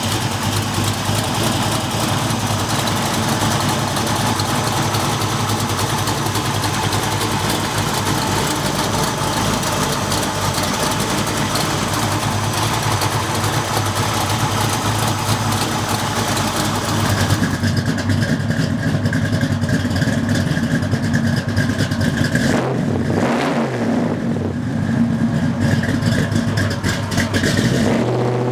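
Ford 514-cubic-inch stroker big-block V8, a bored and stroked 460 breathing through a 3-inch exhaust with Flowmaster mufflers, running steadily at idle. It is revved briefly once, about two-thirds of the way through, and right at the end the truck pulls away under throttle.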